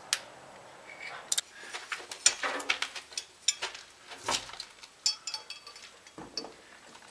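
Hand ratchet, extension and 14 mm socket clicking and clinking together as they are snapped into place and handled: scattered irregular metal clicks.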